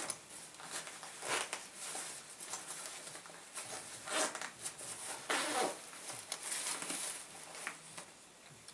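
A nylon backpack being opened by hand: its zippers are drawn and the fabric rustles and crinkles in several short bursts as gear is shifted inside.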